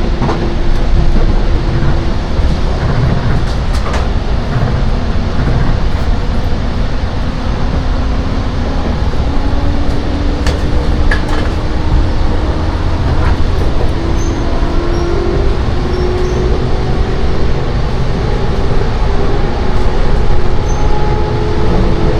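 Loud running noise inside a Seibu 10000 series Red Arrow limited express car: a steady low rumble of the train under way. A faint whine rises slowly in pitch through the second half, and there are a few sharp clicks.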